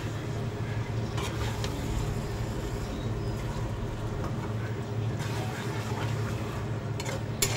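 Flat spatula stirring and turning marinated mutton in a non-stick kadai, with a few sharp clicks of the spatula against the pan about a second in and near the end, over a steady low hum.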